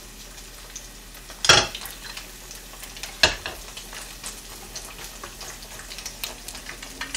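A fried egg sizzling in oil in a nonstick frying pan, a steady hiss. A wooden spatula scrapes and knocks against the pan twice, loudest about a second and a half in and again about two seconds later, with lighter clicks between.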